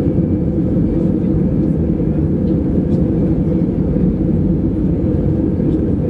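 Steady low rumble inside an Airbus A319 airliner's cabin as it moves on the ground, from its jet engines and cabin air, with a few faint ticks.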